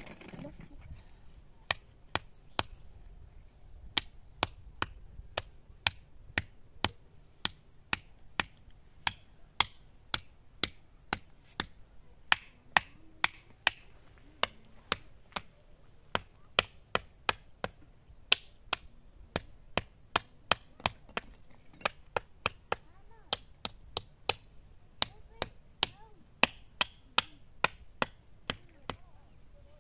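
Steady chopping: a long run of sharp, separate strikes, roughly two a second, with brief pauses.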